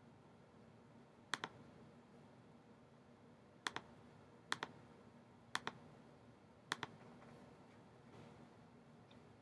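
Five sharp double clicks, spaced about one to two seconds apart, over a faint steady room hum.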